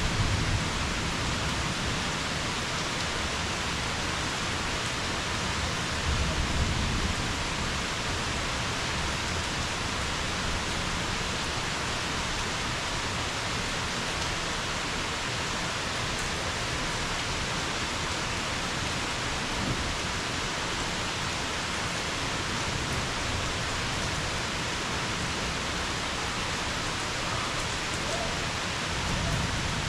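Steady heavy rain falling, with brief low thunder rumbles about six seconds in and again near the end.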